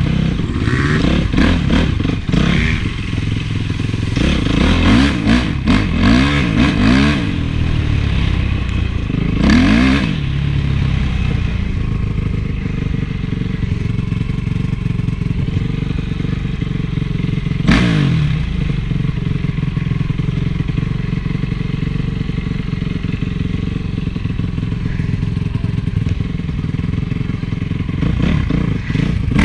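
Honda CRF450 single-cylinder four-stroke motocross engine revving up and down over and over for about the first ten seconds. It then runs at a steady pitch, with one short rise and fall a little past halfway.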